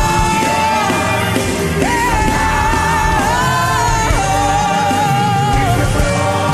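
Gospel worship music: a voice holding long, slightly wavering sung notes, about two seconds each, over a band with a steady bass.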